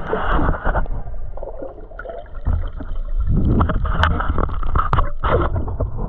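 Underwater sound picked up by a camera in shallow seawater: muffled, uneven water movement and gurgling, with scattered sharp clicks.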